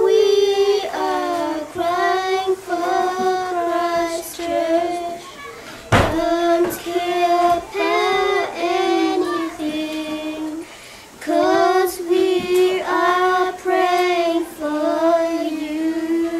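A child singing a slow song in a high voice, holding notes that glide between pitches. There is a sharp knock about six seconds in.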